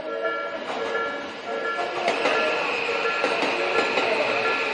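Japanese railway level-crossing warning bell ringing in a steady, repeated ding, with a Tobu Skytree Line train running through the crossing; the train's rushing wheel noise swells about two seconds in.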